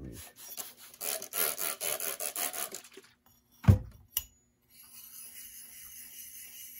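Steel jointer knife rubbed flat on a wet Japanese water stone, deburring the back of the blade: quick scraping strokes, then softer, steadier rubbing. A single loud thump comes about halfway through.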